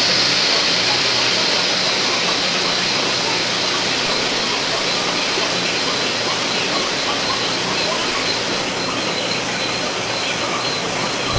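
Two-post hydraulic car lift lowering a car, a steady hiss with a faint high whistle from the fluid bleeding back through the release valve. It stops near the end with a low knock as the lift comes down.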